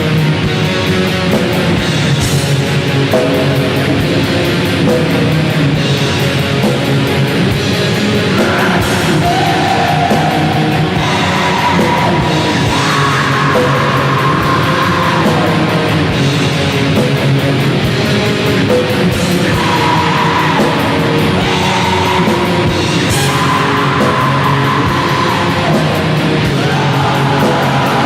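Depressive black metal (DSBM) music: a dense wall of distorted guitar over drums, with a long held lead melody line coming in and out.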